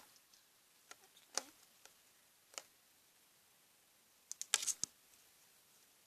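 Homemade slime and its container being handled: a few scattered soft clicks, then a quick cluster of clicks about four and a half seconds in.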